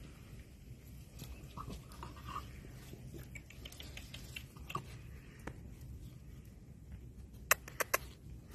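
Bull terrier puppy making a few faint, short squeaks, with three sharp clicks close together near the end.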